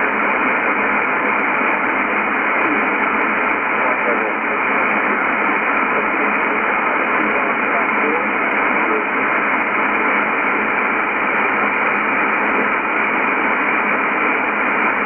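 Yaesu FTdx10 shortwave receiver in upper sideband mode, tuned to an HF air traffic control channel, giving out steady static and hiss with no transmission on the channel.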